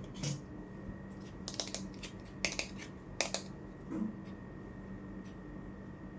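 Light clicks and taps from miniature toy kitchen pieces being handled, in small quick clusters, with a soft low knock about four seconds in.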